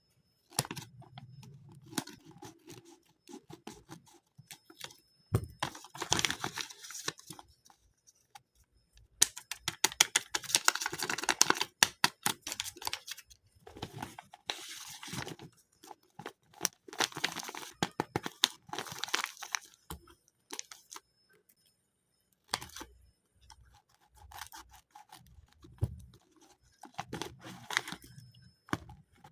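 A paper blind bag being torn open and handled: paper tearing and crinkling in several bursts, with soft clicks and rustles between them.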